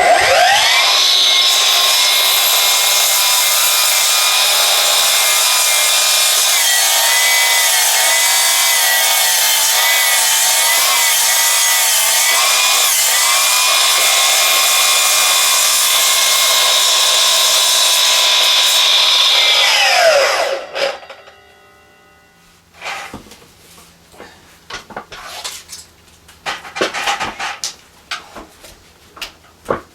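Milwaukee M18 Fuel 12-inch cordless sliding compound mitre saw running and cutting through an old log for about twenty seconds, its whine wavering slightly in pitch under load. Near the end the whine falls quickly in pitch and stops as the brake halts the blade, and a few knocks and clatters follow.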